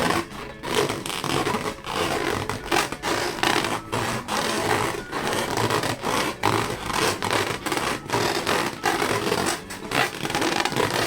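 Rubber balloons being rubbed and squeezed by hand, a dense run of irregular scratchy rubbing strokes.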